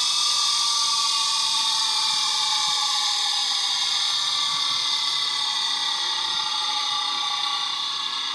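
Electric grinder's abrasive wheel running with a high steady whine and hiss, its pitch sinking slowly; a small steel cutting tool is held to the spinning wheel for sharpening.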